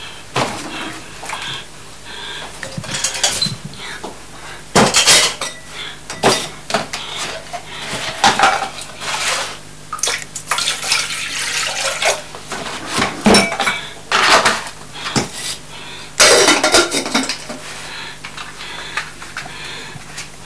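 Kitchen clatter: pots, lids, a kettle and crockery being handled, with irregular knocks and clinks, several of them sharp and loud.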